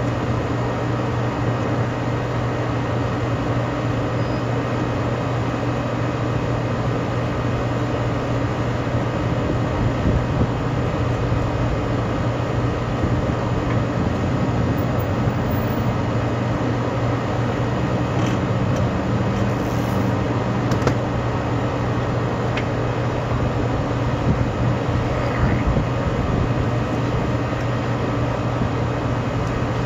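Steady drone of rooftop ventilation equipment running, with a constant low hum and no change in speed, plus a few faint metallic tool clicks about two-thirds of the way in.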